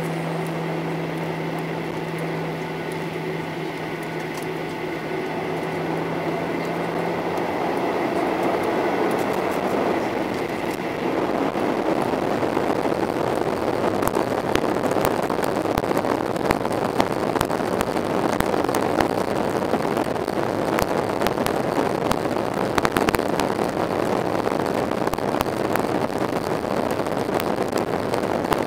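Cabin noise inside a Boeing 737-800. A steady engine hum gives way, about ten seconds in, to a louder rushing rumble with frequent rattling clicks, as the aircraft speeds along the runway on its takeoff roll.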